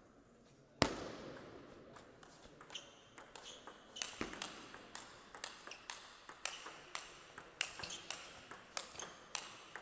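Table tennis rally: the ball clicking off the bats and the table in quick alternation, about two or three sharp knocks a second, starting about three seconds in and running nearly to the end. One louder sharp knock comes about a second in.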